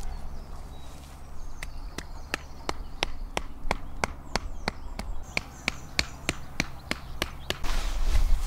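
A wooden tarp peg being hammered into the ground: a steady run of sharp knocks, about three a second. Faint birdsong chirps in the background.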